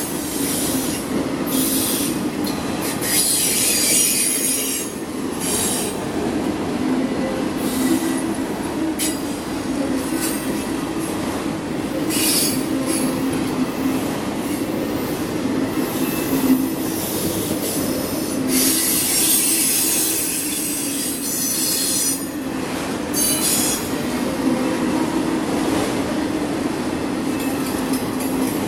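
Autorack freight cars rolling past at speed: a steady rumble of wheels on rail, broken every second or two by short bursts of high hiss.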